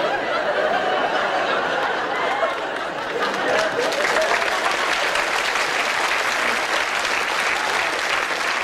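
Sitcom studio audience applauding, with laughing voices mixed in during the first couple of seconds; the clapping grows denser about three or four seconds in.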